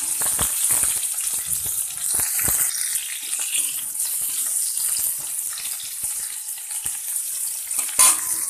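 Raw mango slices sizzling in hot mustard oil in a kadai, with a steady hiss while a spatula stirs them, scraping and knocking against the pan, and one sharper knock near the end.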